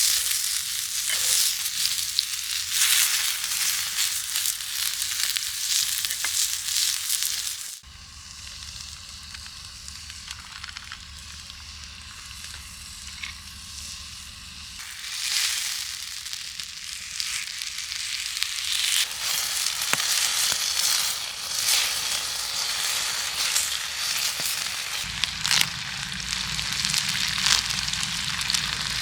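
Food sizzling as it fries in a hot pan, a dense steady hiss that drops abruptly to a quieter sizzle about eight seconds in.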